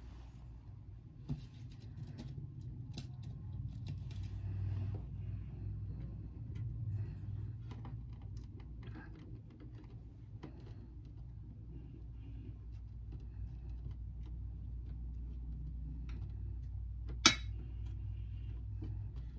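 Quiet crafting sounds on a metal tray: a paintbrush dabbing glue and fingers pressing glitter cardstock pieces, making scattered small clicks and taps, with one sharp click near the end. A steady low hum runs underneath.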